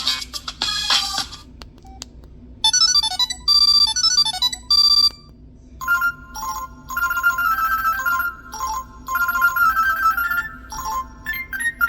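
Samsung Convoy 4 phone playing its preloaded ringtones one after another. The end of one tone is followed about three seconds in by a short tune of quick high electronic beeps. After a brief pause a longer melody starts about six seconds in, and another tone begins near the end.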